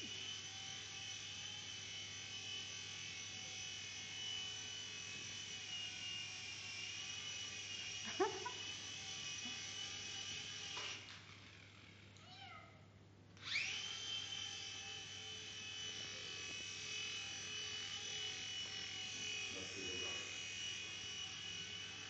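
Small remote-controlled toy helicopter's electric motor and rotor whining steadily. The whine cuts out about eleven seconds in and spins back up two seconds later. A cat gives a short meow about eight seconds in.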